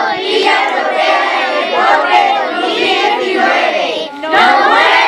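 A group of children shouting a cheer together in unison. One long, drawn-out chant breaks off about four seconds in, and a second one starts at once.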